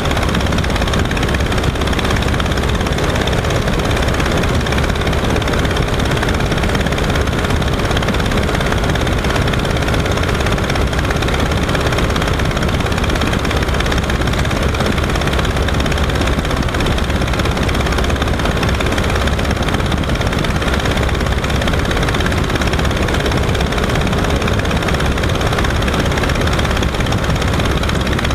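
Verner 3V three-cylinder radial engine and propeller of a Legal Eagle XL ultralight running steadily at cruise power, loud and close, mixed with the rush of the airflow.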